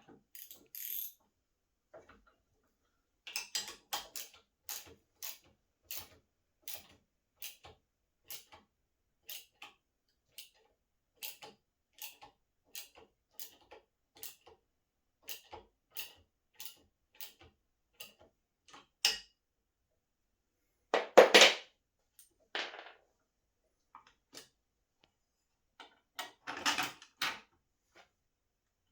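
Hand tools working on the cross trainer's metal hinge bracket as it is bolted back together: a run of evenly spaced clicks, about two a second, then a louder clatter about two-thirds of the way in and another near the end.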